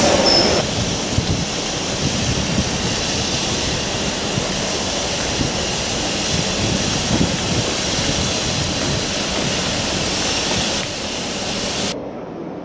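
Steam locomotive 45699, an LMS Jubilee class 4-6-0, standing at the platform with escaping steam hissing steadily, a low rumble beneath. The hiss cuts off abruptly near the end.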